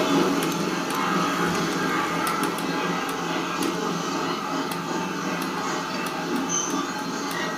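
HO-scale model freight wagons loaded with coal rolling along the track: a steady rolling rattle with light, irregular clicks from the wheels on the rails.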